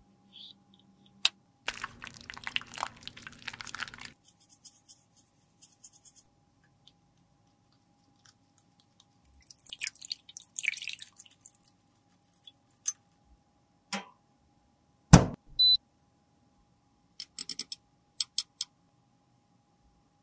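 Close-up handling of lipstick parts: a scraping rustle for about two seconds, a brief rush of tap water over a metal lipstick case, then scattered small clicks and knocks, the loudest a sharp knock about three quarters of the way through.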